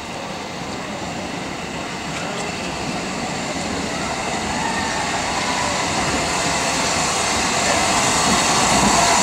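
Metropolitan Railway No. 1, an E class 0-4-4 steam tank locomotive, approaching and running into the station with its train. Its running noise grows steadily louder as it draws near.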